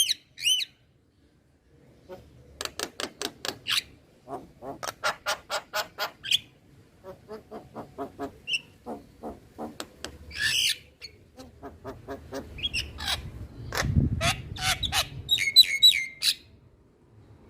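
Male Javan myna (jalak kebo) calling: runs of fast, evenly repeated harsh notes, about seven a second, broken by a squawk and, near the end, a few clear whistled notes.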